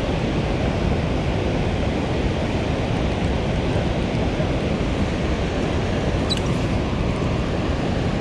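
Steady rush of water pouring through a dam's open spillway gates and churning in the tailwater below, an even, unbroken noise.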